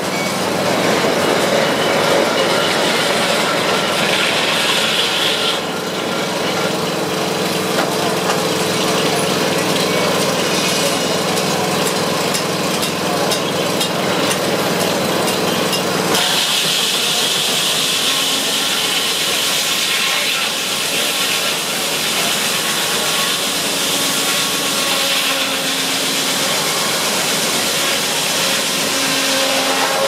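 Steam-powered circular sawmill running: the large circular headsaw spins and cuts through a log on the carriage, over a steady din of belts and machinery. A higher hiss joins in about halfway through.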